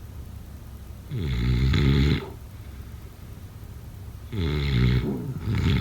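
Snoring: one long snore about a second in, then two shorter snores near the end.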